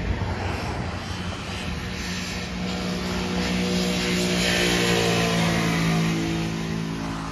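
A passing engine's steady hum, its pitch slowly falling, swelling to its loudest about five seconds in and then easing off.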